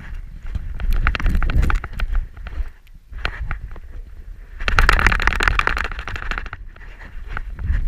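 Rubbing, creaking and knocking from a camera strapped to a horse's back as the horse moves over snow, over a low rumble of movement and wind on the microphone. A louder stretch of rough noise comes about five seconds in.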